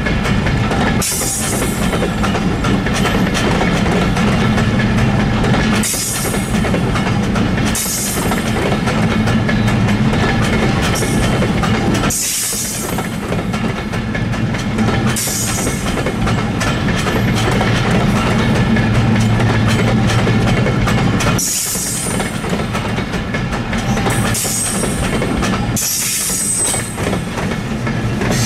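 A train of new GE ES30ACi locomotives rolling past, wheels clicking over the rail joints under a steady rumble, with short high-pitched wheel squeals every few seconds.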